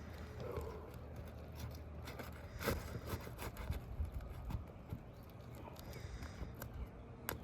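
Scattered light knocks and clicks from work on an asphalt-shingle roof, with a louder knock just under three seconds in and a sharp click near the end.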